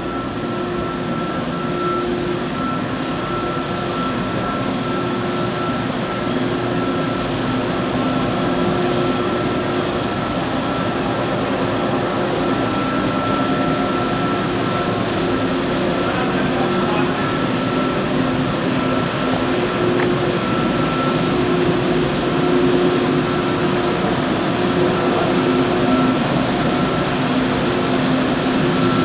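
Steady mechanical hum with a few constant tones, holding level throughout.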